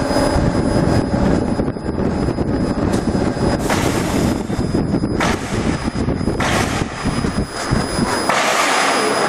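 CO2 laser marking machine running while it engraves a wood sheet: a steady rushing machine noise with a faint high whine, and several short hissing surges in the second half. The low rumble drops away near the end.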